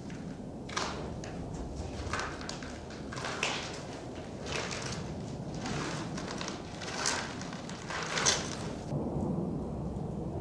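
Slow, irregular crunching footsteps of a group of coffin bearers marching on gravel, over a low steady outdoor rumble.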